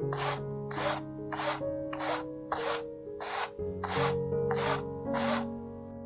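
A wide flat paintbrush is swept back and forth through wet acrylic paint on a stretched canvas. It makes a steady rhythm of scratchy strokes, about three every two seconds, which stop shortly before the end. Soft background music with held notes plays throughout.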